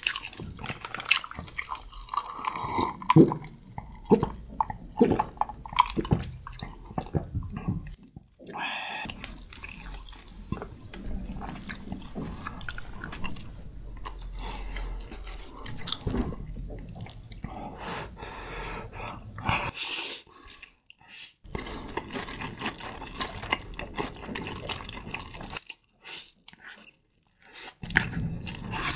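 Close-miked wet eating sounds of spicy Buldak fire noodles: chewing, slurping and mouth clicks, with sharp wet smacks in the first few seconds.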